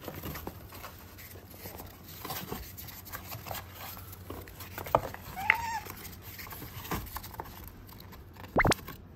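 Paws scratching and rustling on a cardboard box as a small-clawed otter reaches in through a hole and a cat paws at it from inside. There is a short chirping call about halfway through and a loud rising squeak near the end.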